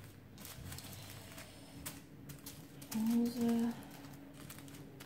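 Small zip-lock plastic bags of diamond-painting drills being picked up and shuffled by hand, giving light, irregular plastic crinkles and clicks.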